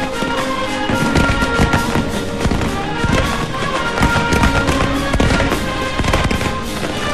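Fireworks crackling and banging in quick succession at a Falles cremà, over band music with sustained tones.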